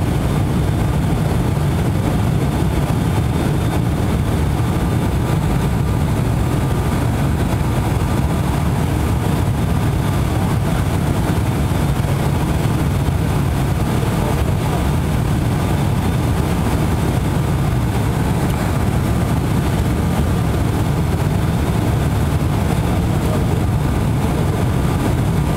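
Cabin noise inside an ATR 72-500 turboprop airliner on approach: a steady low drone from its two Pratt & Whitney PW127 turboprop engines and propellers, with a faint steady whine above it.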